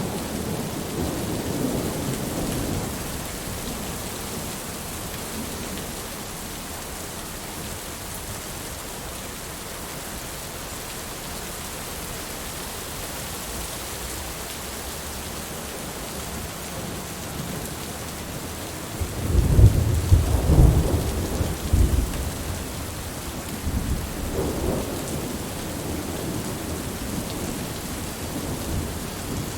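Steady rain falling, with thunder rumbling under it: a low rumble dies away in the first few seconds, a loud roll of thunder comes about two-thirds of the way in, and a softer one follows a few seconds later.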